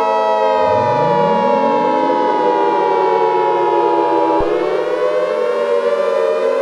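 Several civil defense sirens wailing together. About half a second in, one of them winds up from a low growl into a steady wail, and a steady higher tone drops out about two-thirds of the way through.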